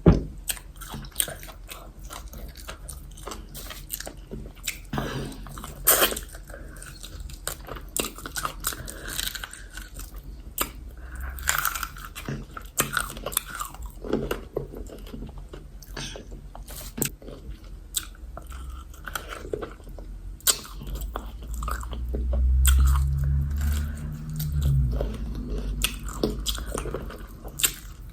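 A person eating yam fufu with egusi soup close to the microphone: chewing with frequent sharp, wet mouth clicks and smacks. A low rumble comes in for a few seconds about three-quarters of the way through.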